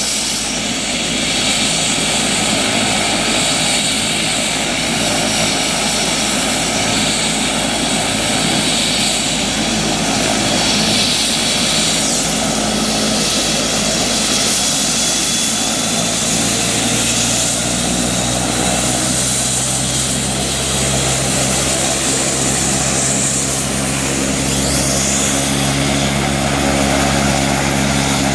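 Air-ambulance helicopter running on the ground, a steady loud rush of turbine and rotor noise with a high whine. About halfway through, a deeper steady hum comes in and grows stronger.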